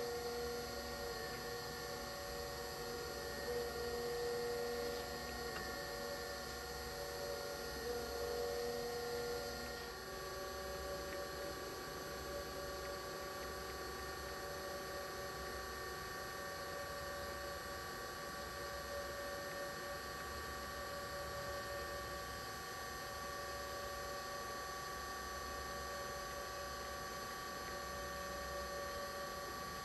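Brown & Sharpe #618 Micromaster surface grinder running with a steady motor hum made of several tones. The tones shift abruptly to a new set about ten seconds in and then hold steady.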